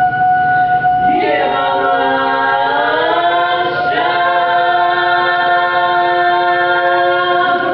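An a cappella choir singing without accompaniment. One voice holds a steady high note, then about a second in the other voices slide in beneath it into a full chord. The chord shifts once about four seconds in and is held as a long closing chord.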